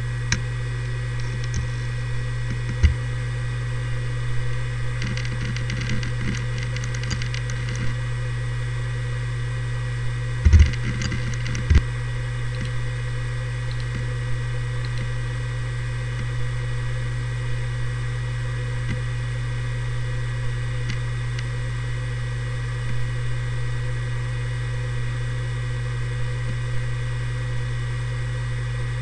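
Seagate Barracuda ES ST3250820NS 7200 rpm hard drive, just up to speed after spinning up, running with a strong steady hum and a thin high whine. For the first dozen seconds the heads work with scattered clicking and bursts of rapid ticking, ending in a few louder clunks, as the drive finishes starting up. Then it settles into idle: steady hum with only an occasional faint tick.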